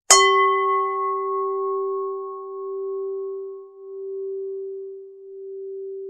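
A Buddhist standing bell (singing bowl) struck once just after the start. Its bright high overtones fade within a second or two, and one low tone rings on with a slow, wavering swell and fade.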